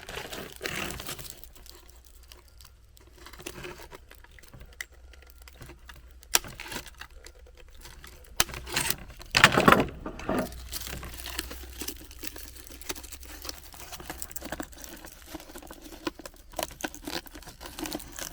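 Hand work on a cut vinyl soffit opening and its vent fitting: scattered clicks, crinkles and scrapes, busiest about nine to ten seconds in.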